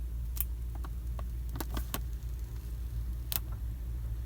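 Scattered sharp clicks and crackles from the sealed plastic packaging of a new laptop battery being worked open, with a quick cluster about two seconds in, over a steady low hum.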